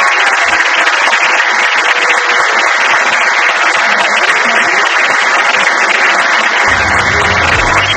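Audience applauding loudly, a dense clatter of many hands clapping at the end of a dance. Low music comes in near the end.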